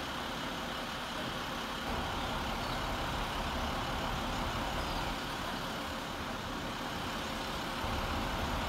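Mobile crane's engine running steadily while it holds a load, a constant low drone with no changes in pitch.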